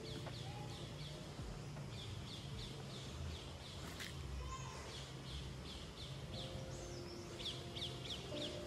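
A bird calling over and over: runs of short, high, falling notes, about four a second, broken by brief pauses, over a low steady hum.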